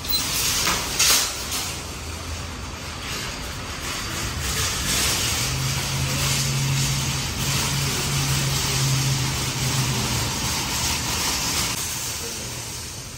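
A motor vehicle driving past on wet pavement: the tyre hiss builds, holds with a low engine hum in the middle, then fades away near the end. A few sharp knocks come in the first second or so.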